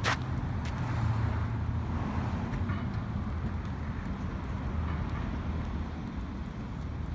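Steady low rumble of vehicle traffic and running car engines, with one sharp click right at the start.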